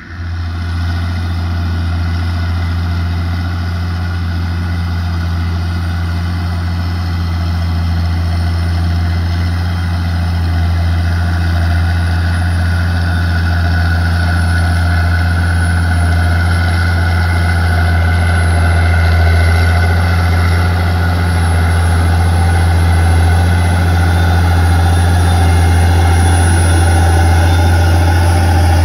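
Tractor diesel engine running steadily with a deep drone while pulling a subsoiler through hard, wet ground, growing slightly louder toward the end.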